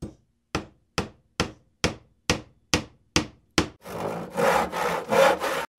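Hammer-blow sound effect: nine sharp strikes, about two a second, followed by about two seconds of scraping in three strokes.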